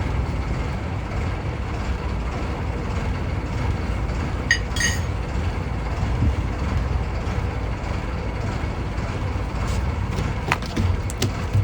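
Fishing boat's engine running steadily under way, a low rumble mixed with noise. A brief pair of high squeaks comes about halfway through, and a few clicks near the end.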